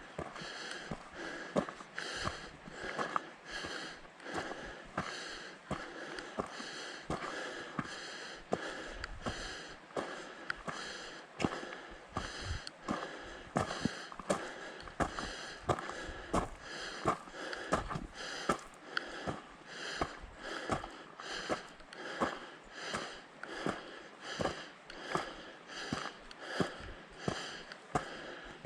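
A hiker's footsteps crunching on a dirt trail in a steady walking rhythm, with the hiker's heavy breathing rising and falling alongside.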